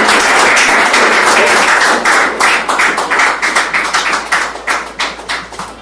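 Audience applauding: a dense patter of hand claps that thins to scattered claps and dies away near the end.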